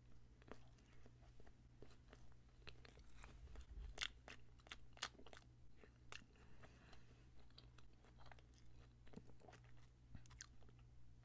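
Close-miked chewing of a soft heart-shaped donut with cake-batter filling: a string of small mouth clicks and smacks, the sharpest about four seconds in.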